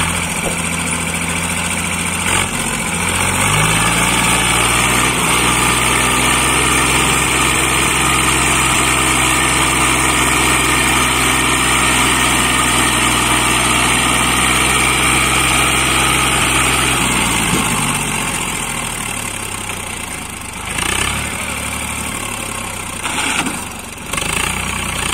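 Swaraj 855 tractor's three-cylinder diesel engine under full load, straining to drag a fully loaded trolley that is stuck in soft sand. The revs climb about two seconds in and hold high and steady for some fifteen seconds, then drop back to a lower, uneven run near the end.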